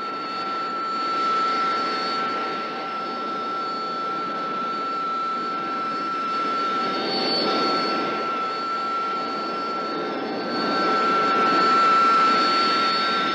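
Jet engine running steadily: a constant high whine over a rushing noise that swells a few times and is loudest near the end.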